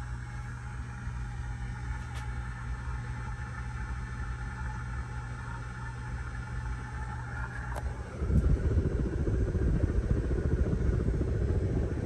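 Hunter low-profile ceiling fan running with a steady motor hum. About eight seconds in, a louder low rumble rises over the hum for about four seconds.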